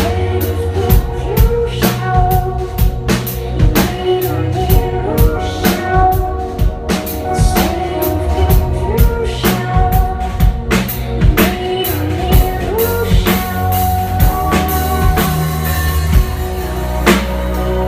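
Live band music: a drum kit keeps a steady beat of kick and snare hits over held tones and a deep bass line.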